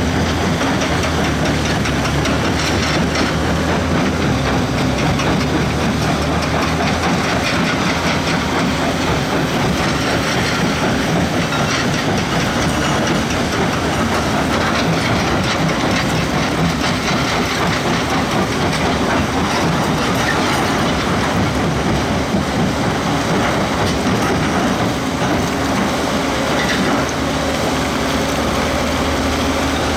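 Heavy diesel construction machinery running under load, a steady engine drone mixed with continuous metallic clatter and rattle.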